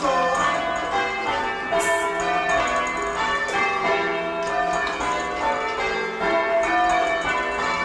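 A ring of church bells being change-rung on ropes, a steady, unbroken succession of bell strikes with their notes overlapping. The sixth bell's clapper has fallen out, so that bell gives no note while the others ring.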